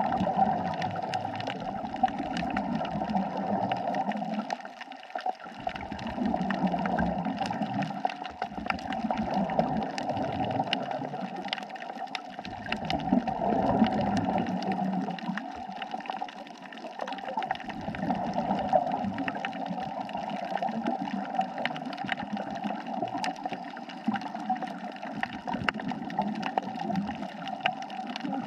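Underwater water noise: a steady watery hiss with low surging swells every few seconds and many small scattered clicks.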